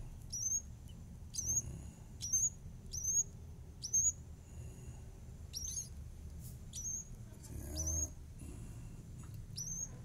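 Nestling birds cheeping: short high-pitched calls that sweep upward, about nine of them, roughly one a second with a brief pause midway.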